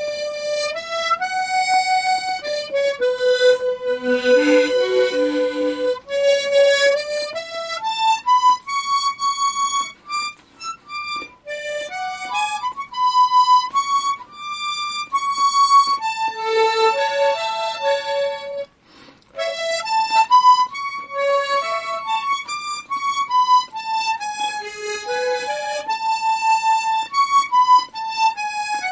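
Solo harmonica playing a slow melody in broken chords, with lower notes rippling up and down beneath the sustained melody notes. There is one brief break about two-thirds of the way through.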